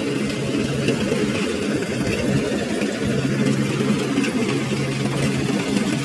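Kubota rice combine harvester running steadily as it cuts and threshes paddy: a constant engine drone mixed with the rattle of the machinery.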